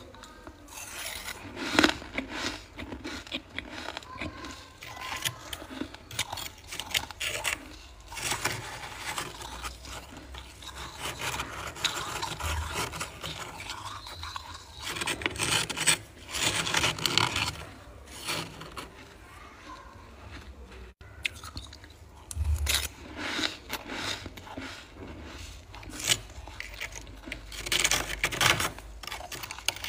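A spoon scraping and scooping built-up frost inside a freezer: a run of uneven, gritty scraping strokes that come in louder spells.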